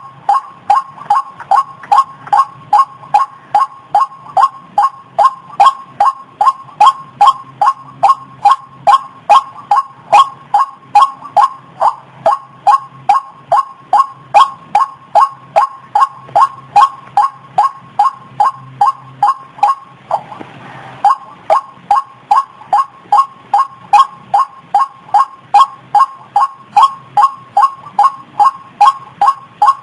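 White-breasted waterhen calling, the same short note repeated evenly at about three a second. There is a brief pause about two-thirds of the way through.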